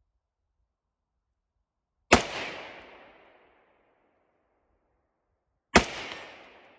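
Two single rifle shots, about three and a half seconds apart, each followed by a long echo that dies away over more than a second.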